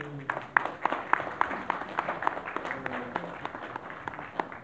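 Small audience applauding: many separate hand claps, dense at first and thinning out toward the end.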